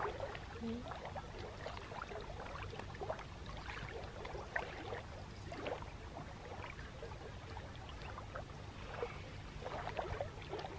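Lake water lapping and splashing lightly at the shore's edge in small, irregular splashes.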